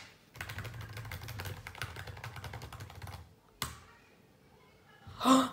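Fast typing on a MacBook laptop keyboard, a quick run of key clicks lasting about three seconds, followed by a single sharper click.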